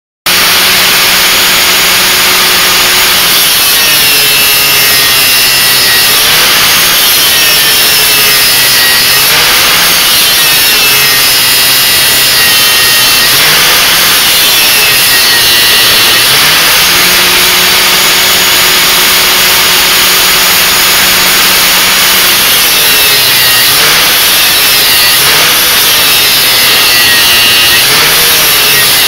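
A 900-watt angle grinder clamped down as a bench grinder, grinding metal held against its wheel. The motor note repeatedly sags and then recovers as the metal is pressed on and eased off, loading the motor.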